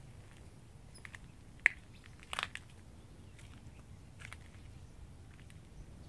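Scattered, irregular crunchy clicks and crackles over a low rumble. One sharp click about one and a half seconds in is the loudest, and a short cluster of crackles follows soon after.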